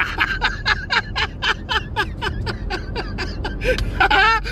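A man laughing hard, a long run of quick 'ha-ha' pulses about four or five a second, breaking into a drawn-out high, wavering squeal of laughter near the end.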